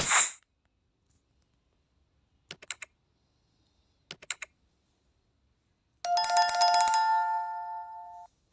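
Subscribe-button animation sound effects: a swish, two quick mouse-click sounds, then a notification bell ringing for about two seconds, fading and then cutting off.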